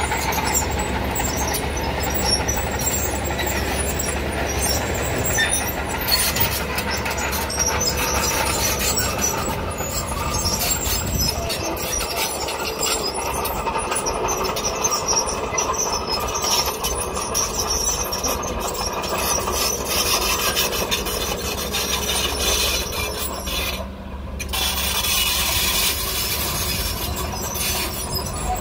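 Komatsu D30P crawler bulldozer working: its diesel engine runs steadily under the clatter and scraping of its steel tracks, dipping briefly near the end.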